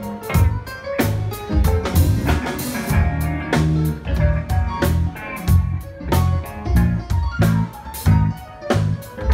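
Live band playing at full volume: drum kit hitting a steady beat under an electric bass line and guitar.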